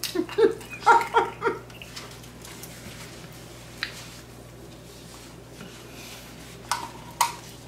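A run of short hummed, whimpering vocal sounds in the first second and a half, a reaction to the heat of spicy ramen, then low room noise with a few short clicks and knocks, one about four seconds in and two near the end.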